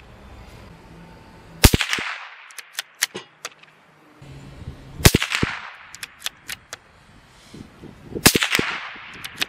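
A CZ 457 bolt-action .22 LR rifle fires three shots about three seconds apart, each a sharp crack from supersonic CCI Mini-Mag hollow-point rounds that trails off in a short echo. Lighter clicks between the shots come from the bolt being cycled.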